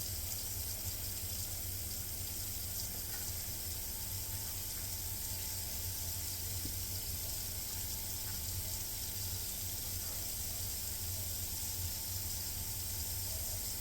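Butter melting in olive oil in a hot skillet, a steady sizzle.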